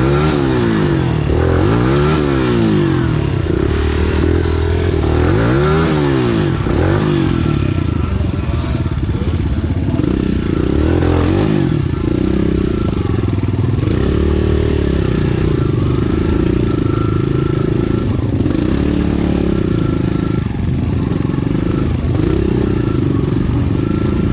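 Enduro motorcycle engine revving up and down under the rider's throttle, its pitch climbing and dropping every second or two for the first several seconds, then holding steadier with slower swells.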